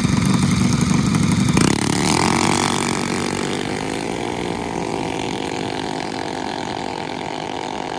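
Two junior dragsters' single-cylinder engines running loudly at the start line, then launching side by side about a second and a half in and pulling away down the road, their sound slowly fading as they go.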